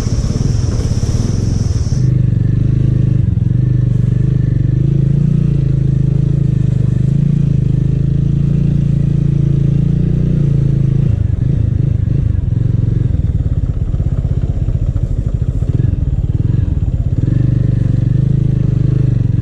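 Small motorbike engine running steadily under way, going rough and uneven for several seconds in the middle before settling again. A high hiss sounds over it for the first two seconds and cuts off suddenly.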